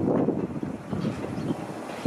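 Gusting wind buffeting the microphone over the low rumble of the Indian Pacific's stainless-steel passenger carriages rolling past at close range.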